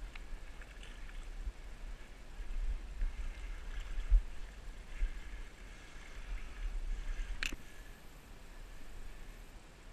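Shallow river water gurgling and splashing as a hooked steelhead is brought in against the grassy bank, with low rumbles of wind on the microphone. A sharp click comes about seven and a half seconds in.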